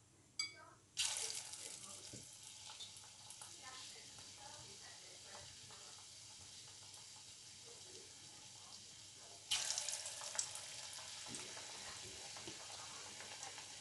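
Batter-coated potato bonda dropped into hot oil, setting off a sudden burst of sizzling about a second in that settles to a steady frying hiss. About eight seconds later a second bonda goes in with another sudden loud sizzle.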